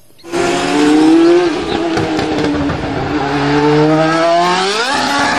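Open-wheel single-seater race car engine running at high revs. Its pitch sags slowly, climbs steeply about four and a half seconds in, and drops sharply at a gear change just before the end.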